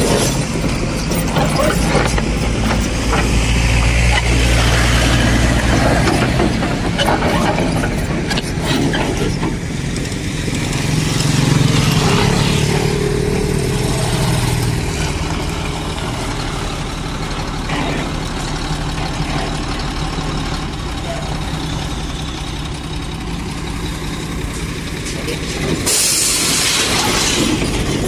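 Crawler excavator's diesel engine running as the machine travels, with a motorcycle engine passing close by about halfway through. Near the end a loud hiss starts.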